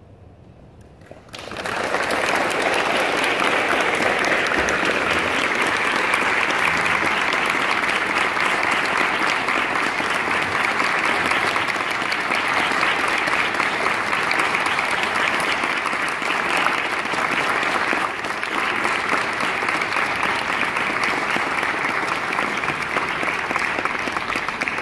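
After a brief hush, audience applause starts about a second in and goes on steadily.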